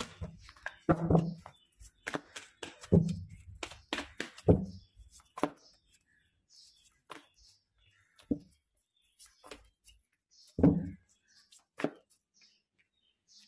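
Tarot cards being shuffled by hand and dealt onto a cloth-covered table: a run of quick, sharp taps and flicks, dense in the first half, then a few single slaps and taps as cards are laid down.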